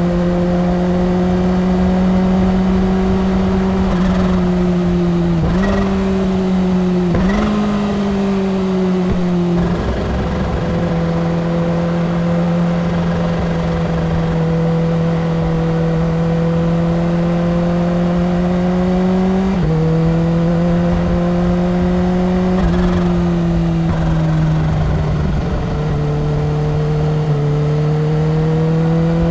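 Kawasaki Ninja H2's supercharged inline-four running at a steady highway cruise, its pitch holding mostly level with a few brief dips and steps, a clear drop about two-thirds of the way through, and a slow rise near the end as the throttle opens.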